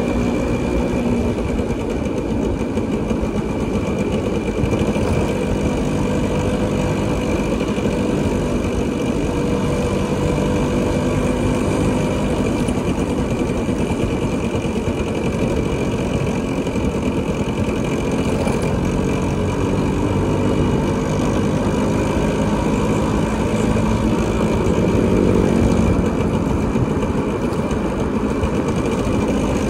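Motorcycle engine running steadily under way, its pitch drifting slowly up and down, over a heavy low rumble of road noise.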